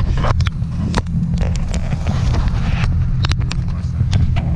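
Nissan VQ V6 running through a loud aftermarket Tomei exhaust and ISR Y-pipe, a steady low drone at an even cruising speed, with scattered sharp clicks.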